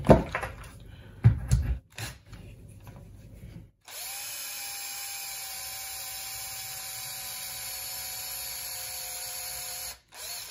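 A few sharp knocks, then a Makita cordless drill runs steadily for about six seconds with a cone-shaped bit, boring out the hole in a 3D-printed plastic knob. It gives a steady motor whine, stops near the end and briefly starts again.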